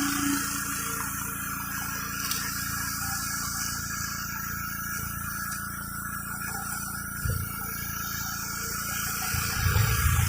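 Gas-engine pressure washer running steadily while its high-pressure water jet sprays and hisses across concrete. A few short low thumps come about seven seconds in and again near the end.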